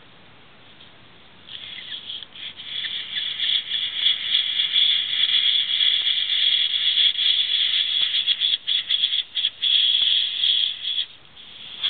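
Airbrush spraying paint from a siphon-feed bottle: a steady high hiss that starts about a second and a half in, cuts out briefly several times, and stops near the end.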